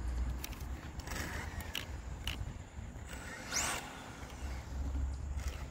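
Electric RC car with a 5.5-turn motor giving a short burst of throttle: its motor whine sweeps quickly up in pitch and back down about three and a half seconds in, over a steady low rumble and a few faint clicks.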